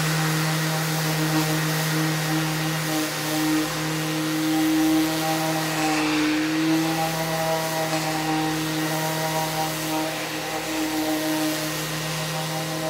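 Random orbital sander with a dust extractor pulling through its hose, running steadily against a wooden tabletop: a steady hum over a hiss, its pitch wavering a little as the sander is pushed around.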